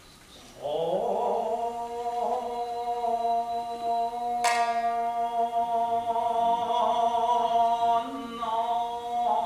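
Jiuta song with shamisen: a voice slides up into one long, wavering held note, and a single sharp shamisen pluck rings out about halfway through.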